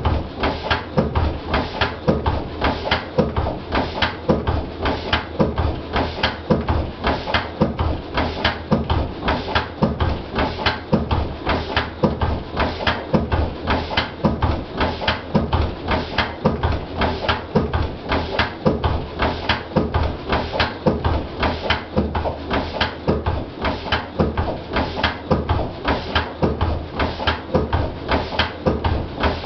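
Lister CS single-cylinder stationary diesel engine running steadily under its own power, each firing stroke a sharp knock in an even, unbroken beat.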